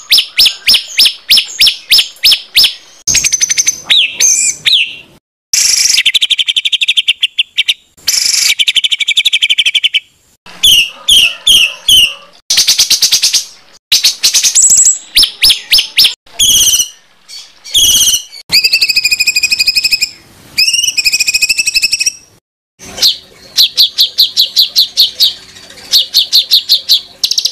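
Recorded songbird song of the harsh, rapid 'tembakan' type: fast runs of sharp repeated notes and trills, with the phrase type changing every few seconds and short pauses between phrases.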